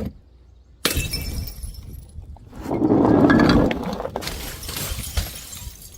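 Glass breaking: a sudden crash about a second in, a louder, longer shattering crash around three seconds, then a sharp hit and scattered clatter of fragments that slowly dies away.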